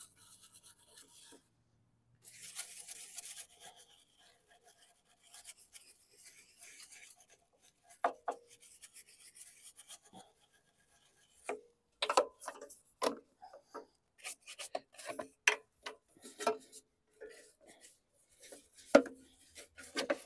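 Small stiff brush scrubbing a lawn mower's plastic wheel in short rasping strokes. From about the middle onward there are scattered sharp clicks and knocks.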